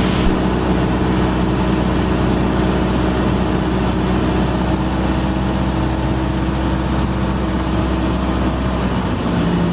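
Cessna 172's four-cylinder piston engine and propeller drone steadily, heard from the cockpit in the landing pattern. The drone's pitch drops slightly near the end.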